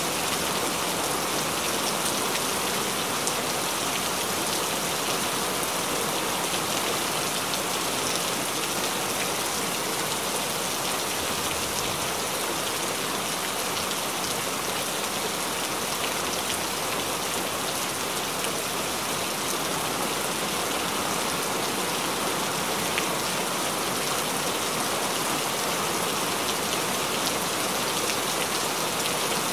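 Steady rain falling: an even hiss with the patter of single drops scattered through it.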